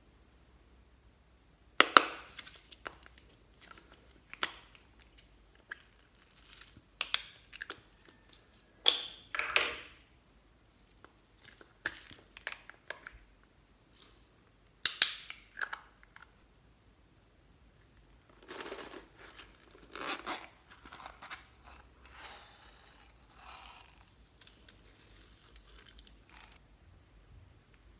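Small plastic containers clicking open and shut, and beads and glitter being shaken out of them into a glass dish of slime: a string of separate sharp clicks and short rattles, with softer sprinkling near the end.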